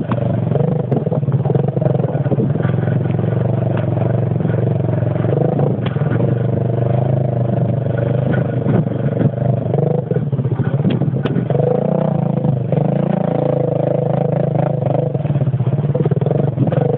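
Motorcycle engine running steadily while riding a rough dirt trail, its pitch wavering a little with the throttle, with scattered knocks and rattles from the bike over the bumps.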